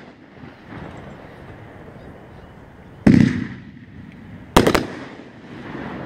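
500-gram consumer fireworks cake (Winda 'LOL') firing aerial shells. A single loud bang comes about three seconds in, then a quick run of three sharp cracks about a second and a half later. Each trails off in a rumbling echo.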